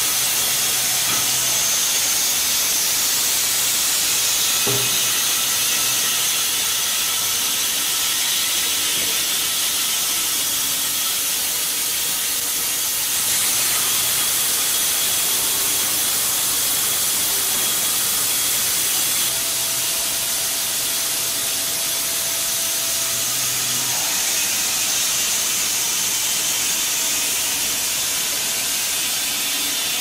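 Vertical band sawmill running while it cuts a log: a steady high hiss with a faint low hum underneath that comes and goes.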